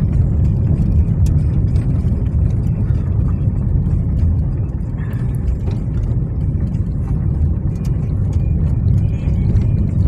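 Car driving on a badly broken, cracked asphalt road, heard from inside the cabin: a steady low rumble of tyres and engine, with light knocks and rattles now and then from the rough surface.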